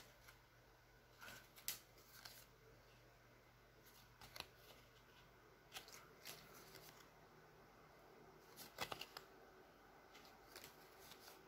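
Faint, scattered rustles and flicks of Leaf Draft football trading cards being handled and flipped through one by one, a soft tick or slide every second or two.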